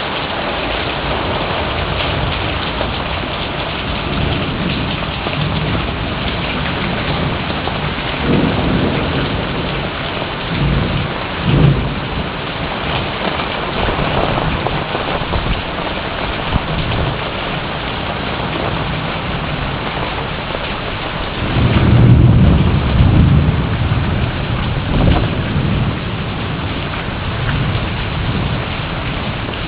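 Steady heavy rain, with several low rumbles of thunder rising over it; the loudest and longest rumble comes about three-quarters of the way through.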